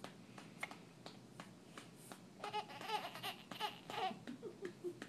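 Infant softly cooing and babbling, high-pitched and faint, in a run of short sounds about halfway through and a few brief ones near the end, with a few short clicks before it.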